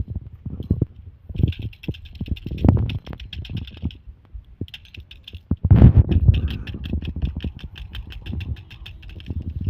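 Hard disk drive running with a fast, even ticking of about eight ticks a second, in runs that stop and start, over low irregular thumps; the loudest thump comes about six seconds in.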